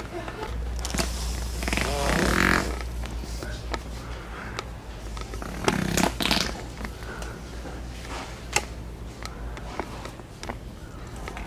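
Prank wet fart noises, played twice: a long, loud, wavering one about two seconds in and a shorter one around six seconds. A steady low hum of the store runs underneath.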